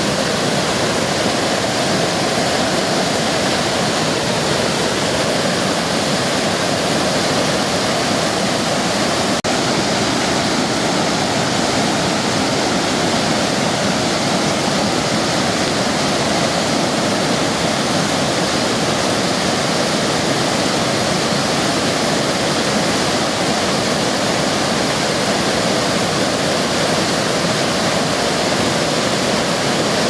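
Waterfall cascade: whitewater rushing and splashing over rock in a steady, loud roar, with a momentary dropout about nine seconds in.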